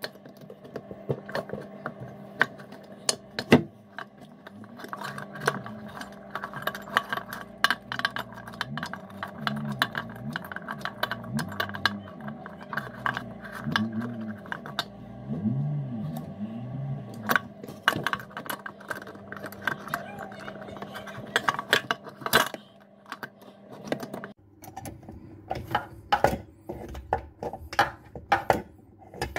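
Irregular metallic clicks and clinks of water-pump pliers and the tap's fixing nut, stud and metal backing washer as the nut holding the old mixer tap under the basin is worked loose. A steady hum underneath stops about 24 s in.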